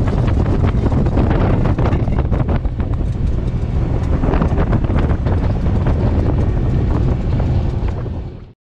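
Strong wind buffeting the microphone of a boat running at speed across open water, over a heavy low rumble. It cuts off suddenly near the end.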